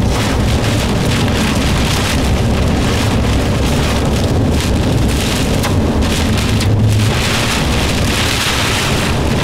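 Heavy rain and wind from a supercell's rear-flank downdraft striking a moving car, heard from inside the cabin: a loud, steady rush of rain on the roof and windshield over a low rumble of wind and road noise.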